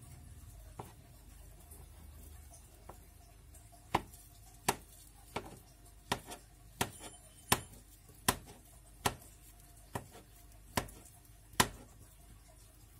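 Kitchen knife chopping banana on a plastic cutting board: sharp knocks of the blade striking the board. There are a couple of scattered knocks at first, then a regular chop about every three-quarters of a second from about four seconds in.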